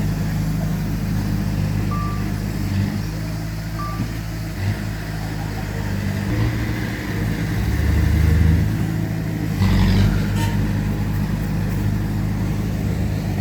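Heavy diesel earthmoving machinery running steadily, with two short alarm beeps about two seconds apart, like a reversing alarm. The engine note swells louder about eight seconds in.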